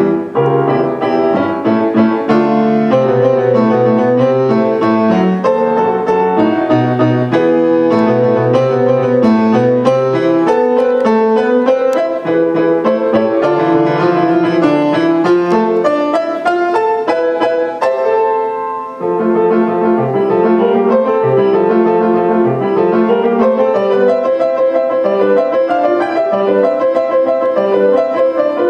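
Grand piano played solo: a continuous stream of quick, busy notes, with a short pause about two-thirds of the way through before the playing resumes.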